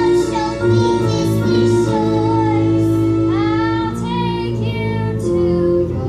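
Singing with instrumental accompaniment: a song from a stage musical, a high voice holding wavering notes over a steady backing.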